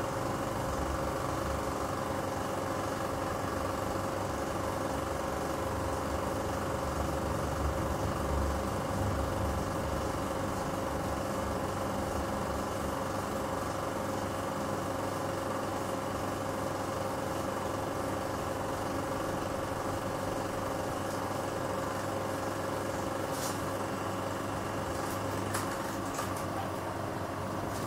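16 mm film projector running: a steady mechanical whir with a constant hum, with a few faint clicks near the end.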